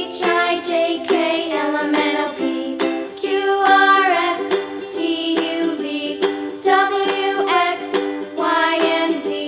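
Background music: a cheerful song with a sung melody over plucked ukulele-like accompaniment.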